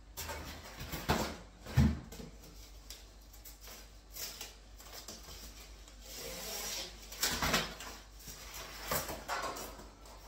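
Handling noise from a wooden kitchen end panel being picked up and moved about: a few sharp knocks, the loudest about one and two seconds in, with rubbing and scraping between them and more knocks near the end.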